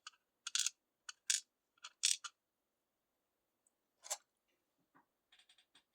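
Small metal parts of a gutted pin-tumbler lock clicking and clinking as they are handled: a string of sharp light ticks over the first two seconds, a single one about four seconds in, and a quick rattle of small taps near the end.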